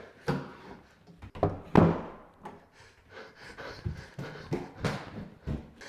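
A few scattered thumps and running footsteps of a barefoot person hurrying along a wooden hallway, with panting breaths.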